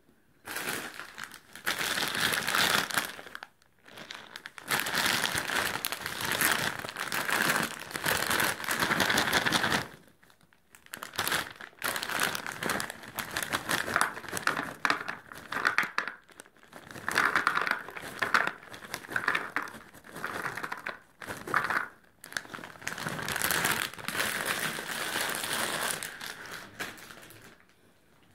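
A crinkly plastic snack bag being handled and shaken while popcorn is poured from it into a plastic tub. It comes in bursts with short pauses between them.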